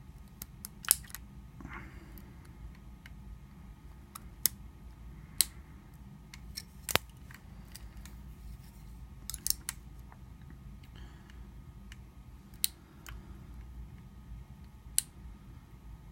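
Lock pick and tension wrench working in the keyway of a small three-wafer gun lock during single pin picking: about a dozen sharp metallic clicks and ticks at irregular intervals, over a faint low hum.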